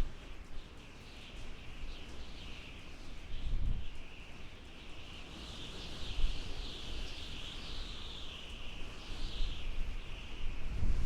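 Desert wind howling, a high whistle that wavers up and down in pitch, with low rumbling gusts about a third of the way in and again near the end.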